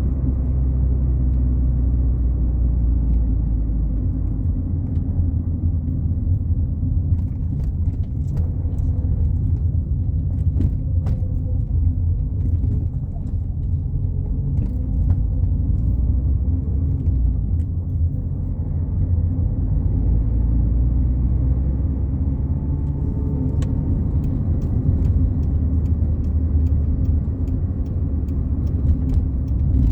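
Fiat Palio Fire cruising on a highway, heard from inside the cabin: a steady low engine and road rumble with a constant drone, and a few faint clicks scattered through it.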